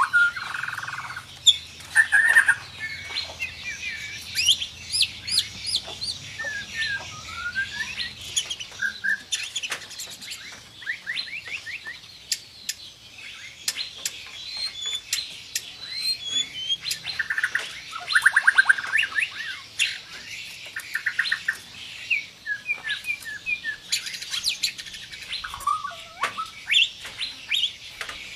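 White-rumped shama (murai batu) singing a varied song of short sliding whistles, chirps and fast rattling trills, the sharp call phrases and tight rolls that keepers prize. The loudest part is a dense, rapid trill about two-thirds of the way through.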